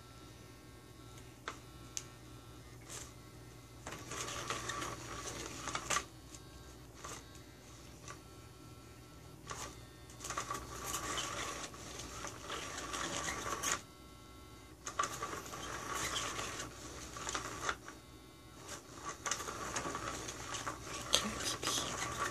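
Hot Pursuit motorized cat toy running in four bursts of a few seconds each, its small motor starting and stopping as the wand moves under the nylon cover, with a few short clicks in the pauses between.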